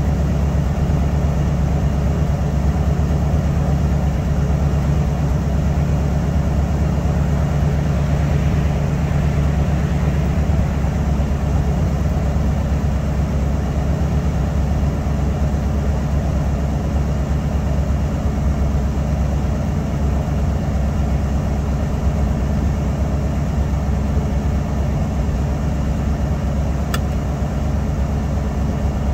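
1995 Ford F-450 Super Duty's 7.5-litre gasoline big-block V8 (the Ford 460) idling steadily as it warms up after a cold start.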